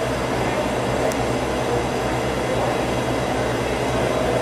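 Steady background roar of a large indoor exhibition hall, a low hum under an even wash of noise.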